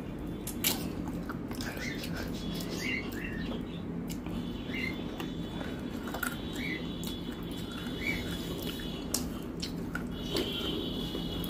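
A dog whining in short, high-pitched whimpers, about ten of them, begging for food. Light clicks and squelches of fingers mixing rice and curry on a steel plate come in between.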